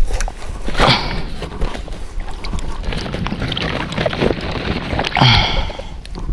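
Wind buffeting the microphone over choppy water, with water lapping and splashing close by. Two brief swishes, about a second in and again near the end.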